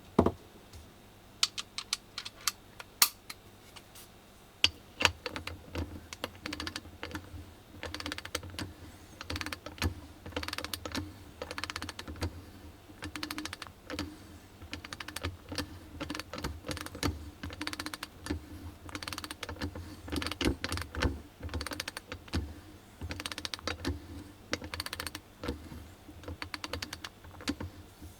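Armstrong 19-903 3/8-inch drive ratchet, with a 30-tooth gear and a single pawl, being worked back and forth so the pawl clicks over the gear in quick runs of clicks. The first few seconds hold only a few separate clicks.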